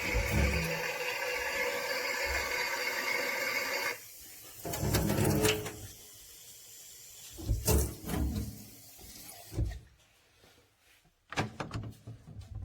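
A Theo Klein 9213 Bosch toy washing machine making its water-fill sound after its Water In button is pressed. The steady hiss cuts off suddenly about four seconds in and is followed by a few short knocks and handling noises.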